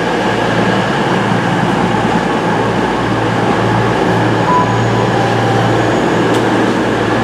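Class 221 Voyager diesel-electric unit's underfloor diesel engines running with a steady low hum as the train draws in. A brief faint squeal sounds about four and a half seconds in.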